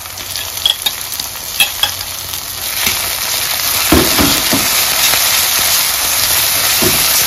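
Onion, garlic and ginger sizzling in hot mustard oil in a wok, stirred with a metal spatula that clicks and scrapes against the pan. The sizzle grows louder about three seconds in.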